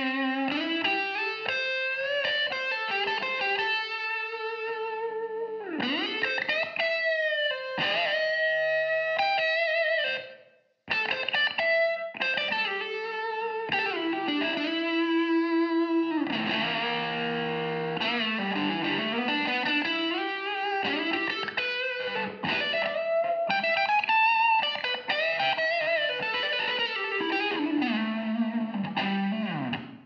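1957 Gibson Les Paul Special electric guitar with P-90 pickups, played through a Hooks Space Heater amplifier: a single-note lead line full of string bends, slides and vibrato. It breaks off briefly about ten seconds in, then carries on.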